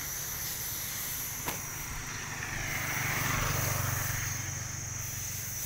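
A vehicle passing, a low engine hum that grows louder about two seconds in and fades again near the end.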